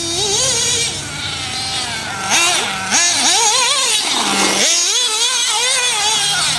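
HSP Bazooka radio-controlled buggy's motor revving hard, its pitch wavering quickly up and down with the throttle, dropping low once a little past the middle before climbing again.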